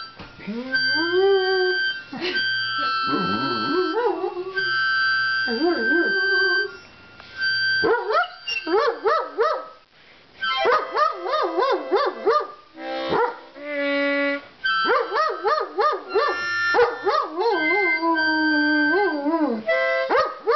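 Harmonica playing long, high held notes while a German Shepherd howls along in response, its howls gliding up and down and wavering. The howling comes in several runs with brief breaks.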